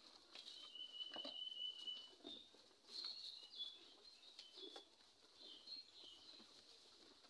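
Faint high bird chirps and twitters, one a thin held whistle in the first two seconds, with a few soft scuffs; otherwise near silence.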